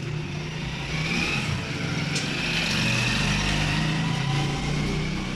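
A motor vehicle passing by: its engine noise swells to a peak about halfway through and then fades, over background music.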